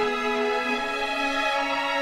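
Background music: slow, sustained orchestral strings holding long notes.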